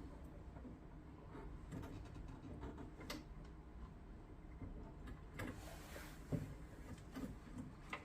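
A few faint, scattered clicks and knocks over a low steady hum, the sharpest about six seconds in.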